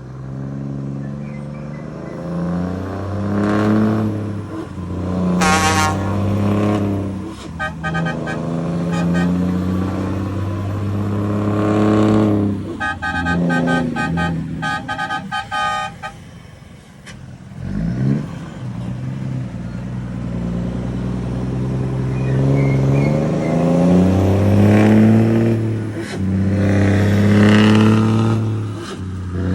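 Scania truck engine revving repeatedly through an aftermarket exhaust, with a deep rumble that rises and falls, dipping to a low idle about two-thirds of the way through. Short runs of higher horn-like tones sound over it in the first half.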